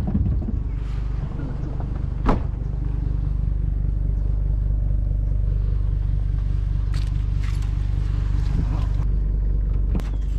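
Pickup truck engine idling steadily, with a few sharp knocks: one at the start, one about two seconds in and a couple near the end.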